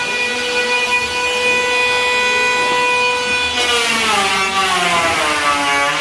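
Handheld electric power tool whining at full speed, then cutting into wood about three and a half seconds in: a hiss of cutting joins the whine and its pitch drops steadily as the tool is loaded.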